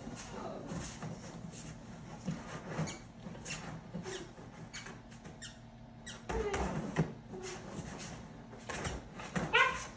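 Boxer puppy pawing and nosing at the top of a large cardboard box: a run of small cardboard scrapes and taps, with a few short squeaks, the loudest one near the end.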